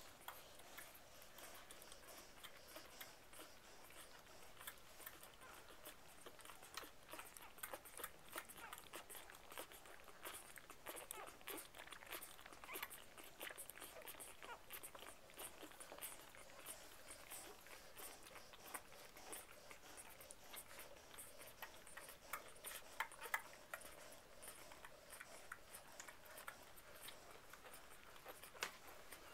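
Newborn puppies suckling at their mother, a faint, busy stream of small wet clicks and smacks.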